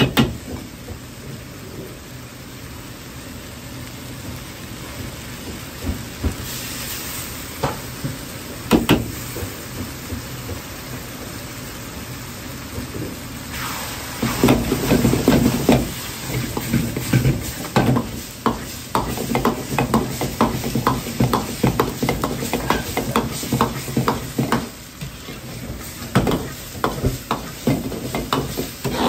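Meat sauce sizzling in a wok, with a few taps of the metal ladle on the pan. About fourteen seconds in the sizzle turns louder and busier, and from then on the ladle clacks and scrapes against the wok over and over as the mixture is stir-fried.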